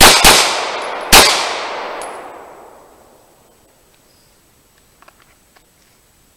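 Three handgun shots: two in quick succession, then a third about a second later, each followed by a long echoing tail.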